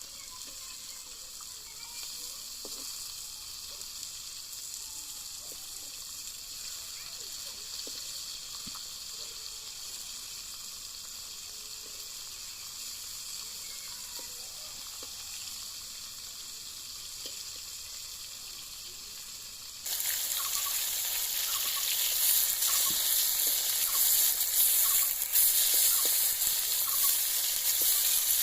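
Food sizzling in hot oil in a cooking pan: a soft, steady sizzle for most of the time, then about two-thirds of the way in it suddenly turns much louder and brighter, with the clicks and scrapes of stirring.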